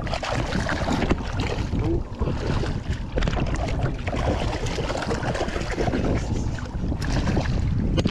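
Wind buffeting the microphone over water slapping and splashing at a small boat's hull. A hooked Atlantic bonito splashes at the surface beside the boat as it is grabbed by hand, adding short irregular splashes.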